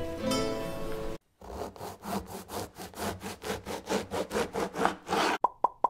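A knife saws quickly back and forth through a crusty loaf of bread, about five strokes a second, after guitar music stops about a second in. Near the end comes a quick run of sharp clicks.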